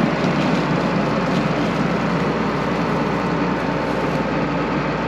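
John Deere 9500 combine running, a steady unbroken engine noise.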